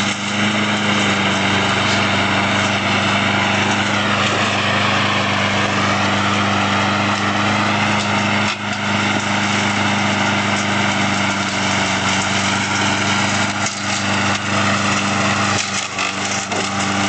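Small lawnmower engine, running on ethanol, running steadily at speed under load, with a slight dip in pitch about four to six seconds in.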